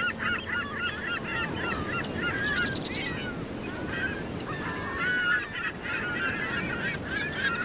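A flock of birds calling, many short cries overlapping, over a low steady rush of surf.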